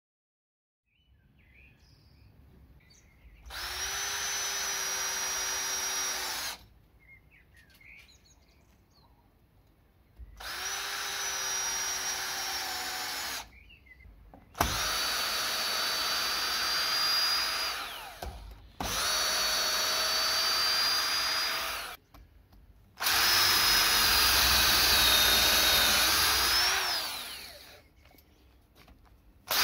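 Repaired cordless drill running in five bursts of a few seconds each, boring holes into a wooden beam. The motor whines at a steady high pitch. The last and loudest burst sags in pitch under load and then picks up again near its end.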